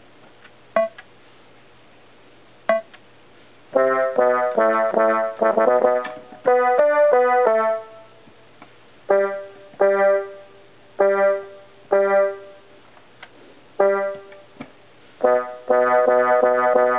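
Casio SK-1 sampling keyboard played: two sharp clicks, then about four seconds in a quick run of notes, a string of separate single notes about a second apart, and a held group of notes near the end.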